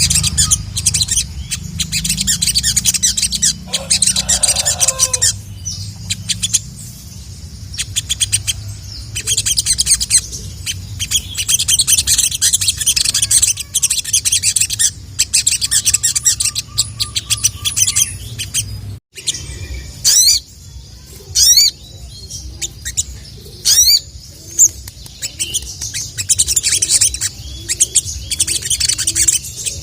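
A sogok ontong (sogon) singing continuously: fast, dense, high-pitched chirping and trilling with hardly a pause, and several quick rising whistles about two-thirds of the way through. A steady low hum runs underneath.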